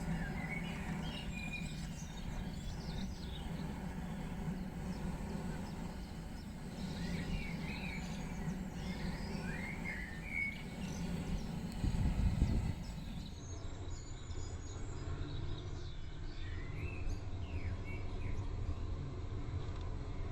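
Small birds chirping intermittently over a steady low background rumble, with a brief louder low rumble about twelve seconds in.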